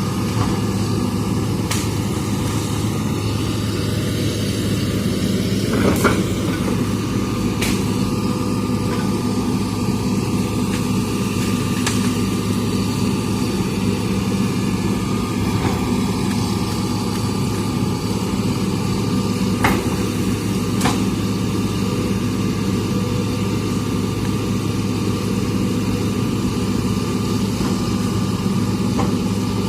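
Hitachi hydraulic excavator's diesel engine running steadily under work, with a few short sharp cracks or knocks scattered through.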